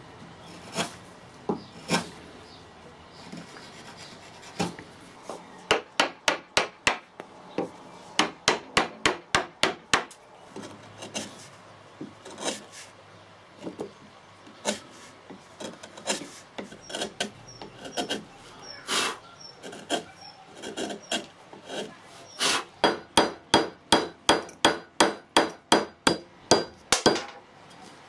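Carving chisel struck repeatedly, cutting into spalted beech: scattered single taps and three runs of quick, sharp strikes, about three to four a second, with chips being pared off.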